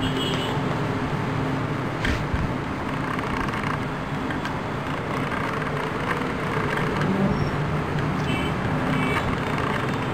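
Steady background noise like road traffic, with a faint click about two seconds in.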